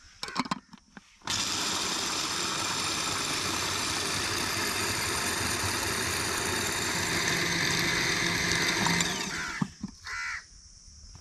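Electric food processor grinding roasted chickpeas into powder. There are a few light clicks as the lid is pressed on. Just over a second in the motor starts, runs steadily for about eight seconds, then stops.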